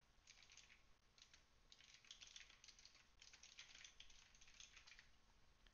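Faint computer keyboard typing: short runs of keystrokes with brief pauses between them.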